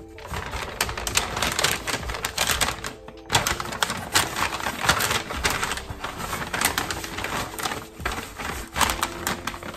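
Brown kraft paper bag crinkling and rustling as hands open it out and press paper napkins into it, a dense run of crackles with a brief pause about three seconds in.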